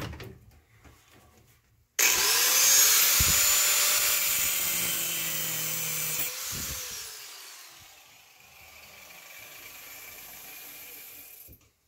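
Angle grinder with a cut-off disc starting up with a rising whine, then cutting through a steel chain link clamped in a vise for about four seconds. The sound then drops and fades as the disc slows, stopping near the end.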